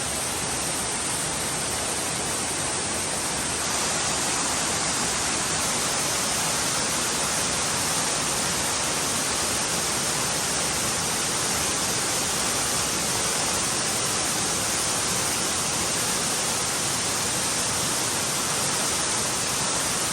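Kongo Falls raging in high water: a steady, dense rush of falling water. It gets a little louder about four seconds in.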